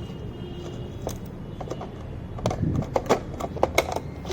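Irregular sharp clicks and knocks of hard objects in a small plastic toy washing machine, over a low hum. The knocks come more often in the second half.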